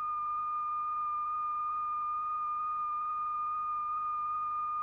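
Steady, high-pitched electronic tone held at one pitch, with a fainter overtone above it: the continuous-wave tone that drives the vibrating diaphragm and sets the lycopodium powder flowing and rotating.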